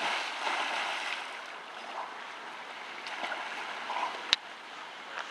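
Swimming-pool water splashing and churning just after a man's jump in, settling as he swims, with one sharp click about four seconds in.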